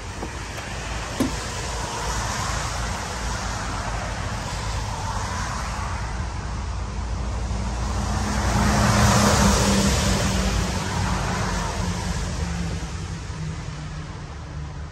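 A motor vehicle passing, its engine and tyre noise swelling to its loudest about nine seconds in and then fading away. A single sharp knock sounds about a second in.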